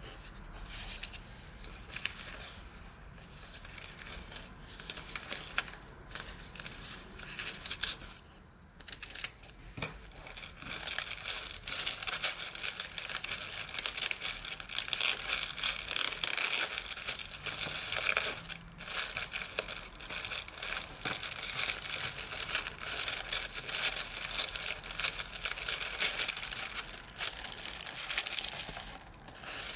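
Close-up paper handling: light rustling and small taps at first, then from about twelve seconds in, louder steady crinkling and rustling of gift wrapping paper as hands peel off its seal sticker and unfold it.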